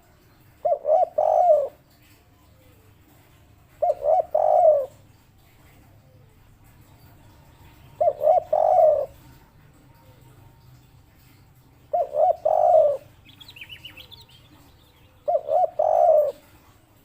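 Spotted dove (tekukur) cooing in the three-note 'kuk 3' song: five phrases a few seconds apart, each two short coos then a longer one. Another bird chirps faintly about thirteen seconds in.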